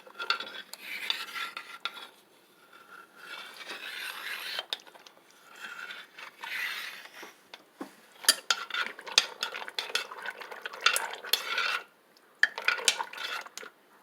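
A metal spoon stirring and scraping in a pot of seasoned macaroni, with sharp clicks as it knocks the sides, busiest in the second half.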